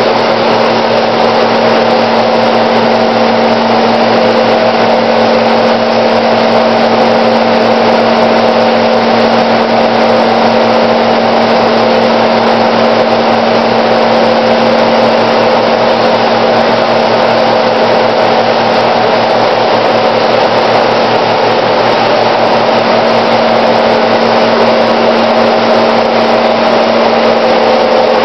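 Bank of froth flotation cells running, their impeller drive motors giving a loud, steady hum with a constant whine.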